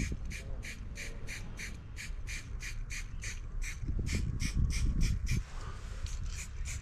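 Aerosol spray-paint can fired in short rapid taps, about three hisses a second, against a hand-held card shield; the taps stop about five and a half seconds in. A low rumble swells underneath around four to five seconds in.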